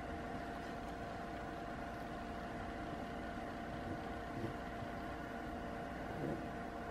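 Steady room hum and hiss with a faint steady tone, and two brief soft sounds, one about four seconds in and one about six seconds in.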